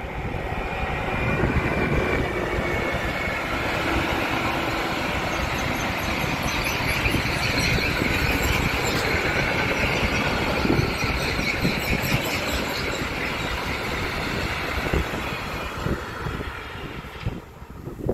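Electric locomotive hauling a long freight train of covered wagons past: a steady rumble and clatter of wheels on the rails, with a faint high wheel squeal. The sound falls away near the end as the last wagons go by.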